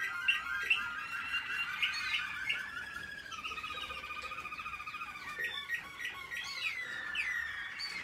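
American Singer canaries singing: a fast, choppy trill for the first few seconds, then a smoother rolling phrase, and quick falling slurs near the end.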